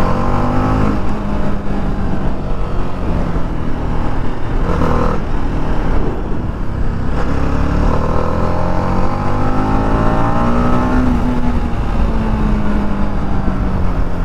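TVS Apache RR 310's single-cylinder engine running under way through its stock exhaust. The note rises and falls with the throttle, climbing steadily to a peak about eleven seconds in and then easing off.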